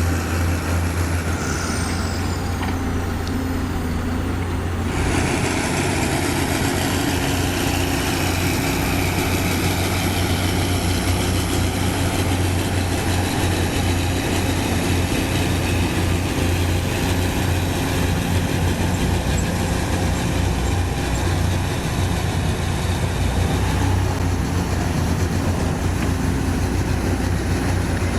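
Heavy diesel engine of earthmoving machinery running steadily with a deep hum. About five seconds in, a brighter hiss of working noise joins in.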